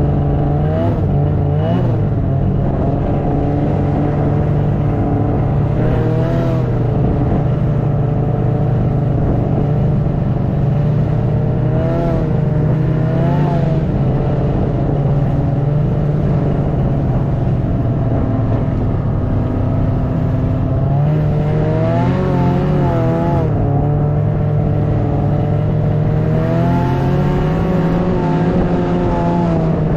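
Snowmobile engine running steadily while under way, its pitch rising and dipping briefly several times with changes of throttle.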